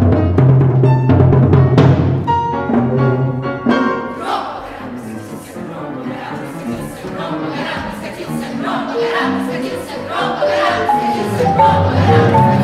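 Live concert music for children's choir, piano and percussion. Timpani and struck notes are loud for the first few seconds, then a quieter passage follows, and a line of notes climbs and grows louder near the end.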